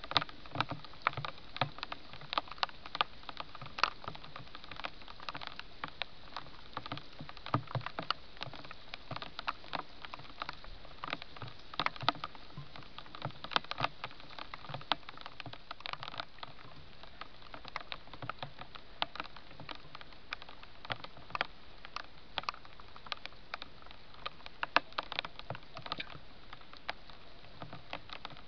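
A hedgehog and a fox eating, with irregular crunching and chewing clicks, several a second.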